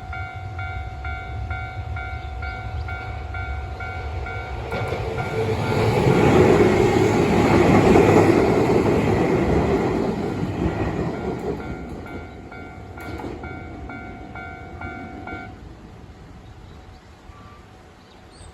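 Japanese level-crossing alarm ringing an even, rapid ding-ding while an Izu Kyuko Line train passes; the train's noise swells to a peak midway and fades away. The crossing bell stops about three-quarters of the way through, after the train has cleared.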